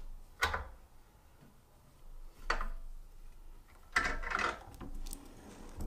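Handling noises on a floor drill press: short clunks and scrapes of metal parts being fitted by hand, one near the start, another about two and a half seconds in, and a quick cluster of clatters about four seconds in.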